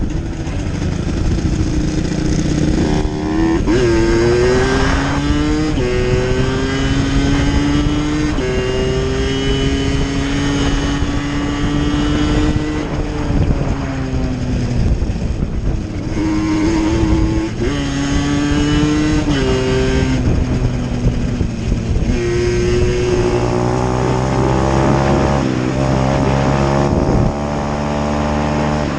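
Dirt bike engines being ridden, revving up through the gears again and again: the pitch climbs, drops at each shift and climbs again, over a steadier lower engine note.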